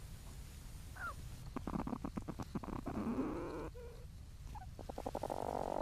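Young platypuses calling in their nesting burrow, picked up by a microphone inside the chamber: a short squeak about a second in, then rapid clicking, purring bursts, and a steady buzzing purr that starts near the end.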